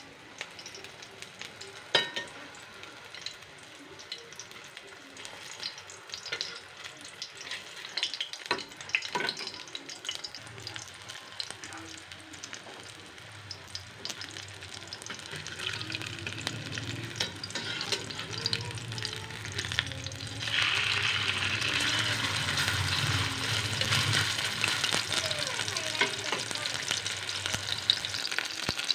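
Burger frying in a pan, a steady sizzle with a few sharp utensil knocks early on. About two-thirds of the way through, the sizzling suddenly gets louder.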